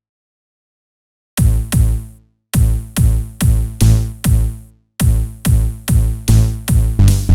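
Electronic dance music with a drum-machine beat. It begins with over a second of dead silence. Then punchy pitched stabs come in at nearly three a second, cut by two brief drop-outs before running on steadily.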